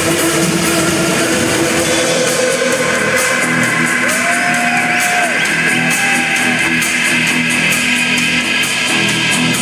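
Live rock band playing an instrumental passage: electric guitars over a drum kit, with sustained chords. Two short arching tones rise and fall in pitch about four and six seconds in.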